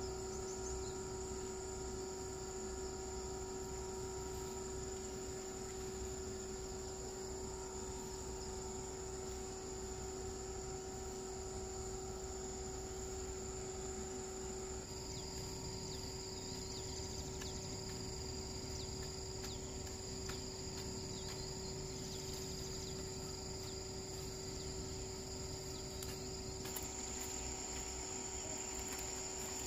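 Steady chorus of insects chirring, several unbroken pitches sounding at once. The blend of pitches shifts suddenly about halfway through and again near the end.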